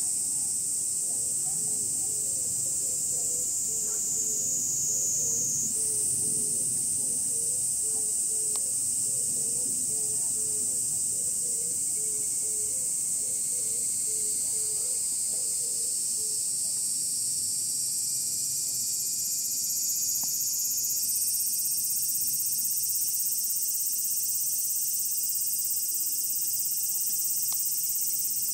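A summer chorus of cicadas: a loud, steady, high-pitched shrill that sags in pitch and then jumps back up twice.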